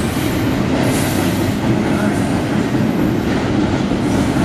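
BNSF double-stack container train's cars rolling past: a steady rumble of steel wheels on the rails, with a thin high wheel squeal now and then.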